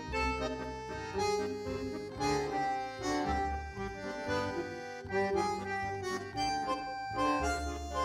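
Background music: a melody of held notes that change every half second or so.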